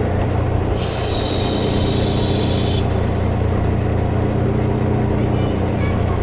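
Semi truck's diesel engine idling steadily, with a hiss lasting about two seconds starting about a second in.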